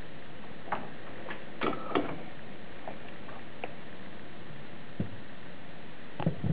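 Scattered light clicks and taps of hands handling a DB9 connector, its cable and the metal alligator clips of a helping-hands clamp, a cluster about two seconds in and another near the end, over a steady background hiss.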